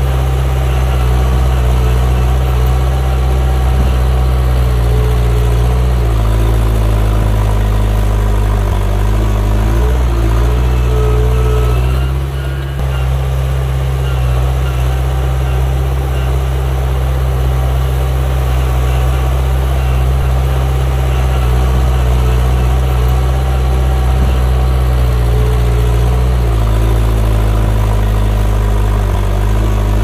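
Diesel engine of a heavy construction machine running steadily, its pitch shifting slightly a few times, with a brief drop in level about twelve seconds in.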